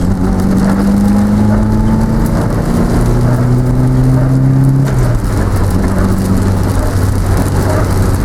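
A car driving, with steady engine and road noise. The engine note climbs slowly and drops about five seconds in, as at a gear change.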